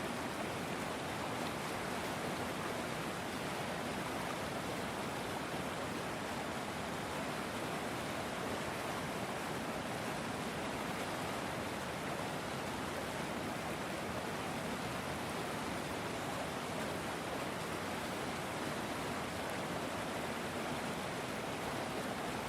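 River water flowing, a steady, even rushing with no change in level.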